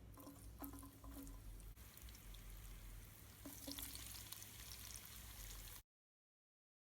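Faint sizzling of food cooking in a pot on a charcoal coal pot stove, with a few light clicks and clinks, cutting off to dead silence near the end.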